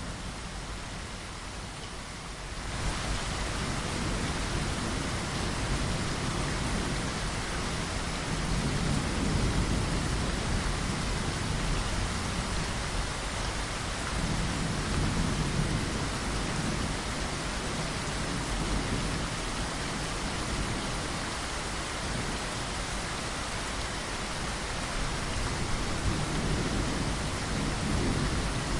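Steady rain against a window glass, with low rumbles of thunder swelling now and then. A few seconds in, the rain changes from a thinner hiss to a fuller, louder downpour.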